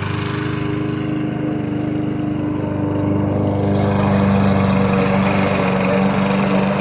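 Lawn mower engine running steadily, getting a little louder about four seconds in.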